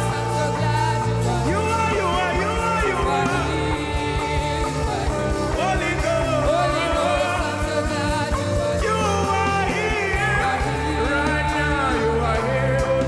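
Live gospel worship music: keyboard and drums playing under a voice that glides and bends between notes.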